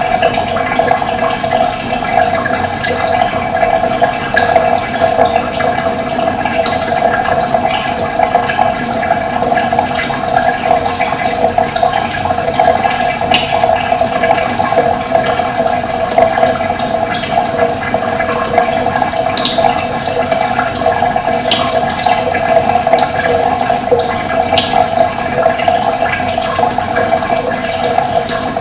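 Running water flowing in a steady, unbroken rush, with short high bird chirps scattered throughout.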